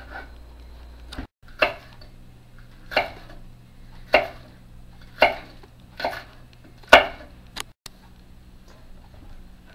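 Chef's knife slicing a yellow bell pepper on a wooden cutting board: about six sharp knocks of the blade on the board, roughly one a second.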